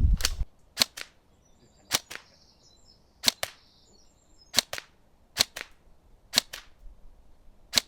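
Tokyo Marui Next Gen recoil electric airsoft gun firing single shots, about eight sharp clacks roughly a second apart, several followed closely by a fainter click.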